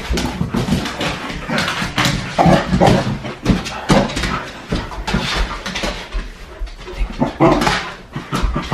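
Bernedoodle puppy vocalizing in short bursts while jumping and scrambling about, with many short clicks and knocks from its paws on a hard floor.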